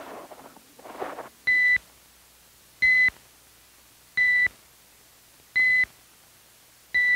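Electronic beep tone repeating evenly about every second and a half: five short beeps, each one steady high pitch, timing the shoot-or-don't-shoot decision. A short rustling comes just before the first beep.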